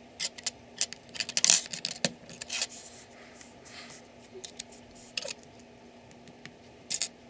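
Small plastic LEGO pieces being handled: a run of light clicks and rattles with some rustling about one to three seconds in, then a few isolated clicks later.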